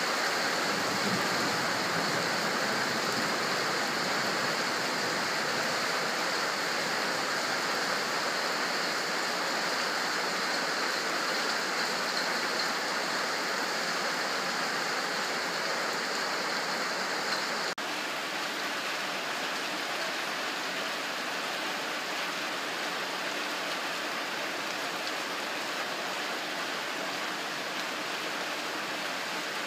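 Steady heavy rain falling, a dense even hiss. About two-thirds of the way through it cuts for an instant and resumes a little quieter and duller.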